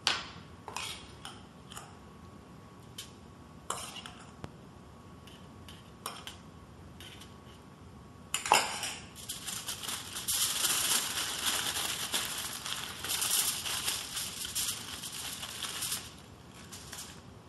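A metal spoon clinking now and then against a stainless steel mixing bowl as a chopped tomato mixture is scooped out. A sharp knock comes about eight seconds in, followed by several seconds of louder, continuous crinkling of aluminum foil as it is folded into a packet.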